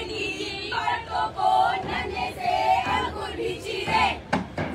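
A group of voices singing together in held, chant-like phrases, with a few sharp hits near the end.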